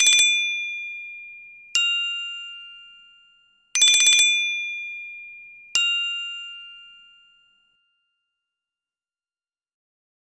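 A Nokia E5-00/E7-00 ringtone: a bell-like two-note figure, a fluttering first note followed by a clear, slightly higher one, played twice with each note ringing out and dying away. It ends about seven and a half seconds in.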